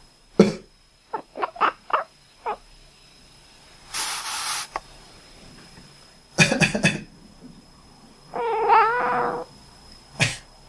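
A person coughing and a cat answering with short, quack-like calls, several in a quick run. There is also one longer, wavering call about two seconds before the end.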